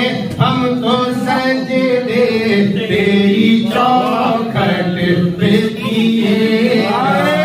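A man singing a naat, an Urdu devotional poem, into a microphone in long drawn-out held notes.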